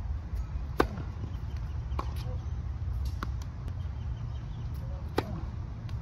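Tennis rally on a hard court: sharp pops of the ball on racket strings and its bounces on the court. The two loudest hits come about a second in and about five seconds in, with fainter ones between.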